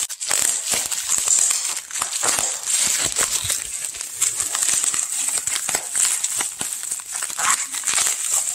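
Plastic bubble wrap being crinkled and handled: a dense crackling of many small clicks.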